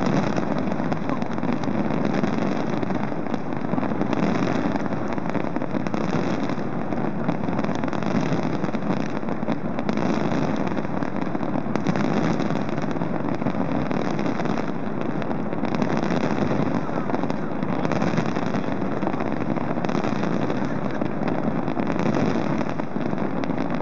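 Massed aerial fireworks heard from a distance, the many bursts merging into one continuous, steady rumble without separate bangs.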